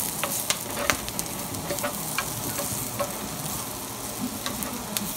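Diced onions sizzling in hot oil in a skillet as a spatula stirs them around the pan. Scattered sharp clicks sound over the steady sizzle.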